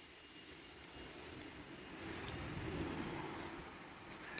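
Scissors cutting lengthwise through a 3/8-inch rubber hose: a rough crunching scrape of the blades through the rubber, swelling in the middle, with a few sharp clicks from the blades.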